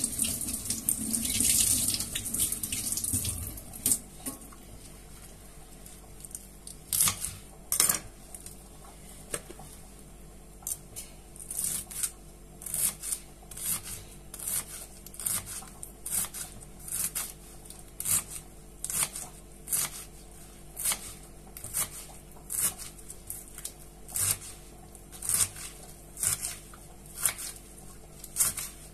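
Tap water running for the first few seconds, then a kitchen knife chopping leafy greens on a plastic cutting board: sharp chops in a steady rhythm, about one and a half a second.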